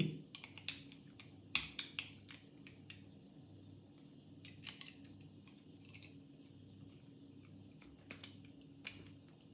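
Small brass parts of an antique two-lever furniture lock clicking and clinking as the levers are fitted back into the lock case. A quick run of light metallic clicks in the first few seconds, then a few scattered clicks later.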